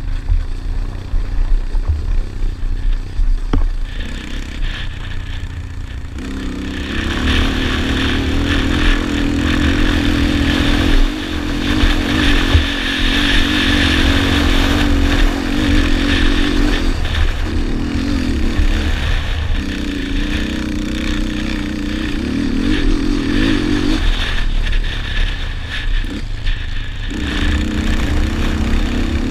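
Yamaha Raptor 250 quad's single-cylinder four-stroke engine being ridden hard over a motocross track, under a steady low rumble. The engine note comes up strongly about six seconds in, wavering as the throttle works, eases off briefly a few times, drops back for a few seconds about three-quarters through and picks up again near the end.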